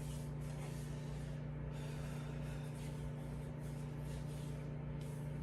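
Microwave oven running, a steady electrical hum with a low drone.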